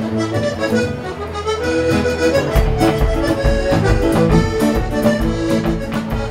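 Live band playing an upbeat East Coast dance tune led by accordion, with sustained held notes throughout. A steady bass and drum beat comes in about two and a half seconds in.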